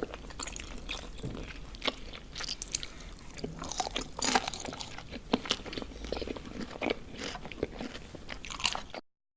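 Close-miked eating of Korean spicy noodles: chewing with crisp, wet crunches and mouth smacks at an irregular pace. The sound cuts off abruptly about nine seconds in.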